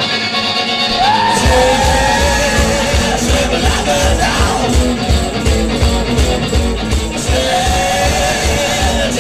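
Live rock band: electric guitar over a steady drum beat, with loud singing coming in about a second in, pausing midway and returning near the end.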